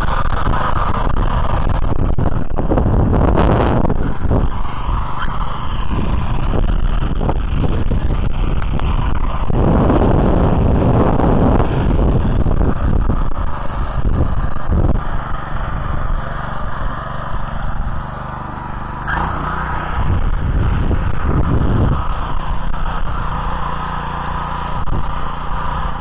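Oka walk-behind tractor's petrol engine running steadily under load as it drags goose-foot cultivator tines through loose, freshly sown soil.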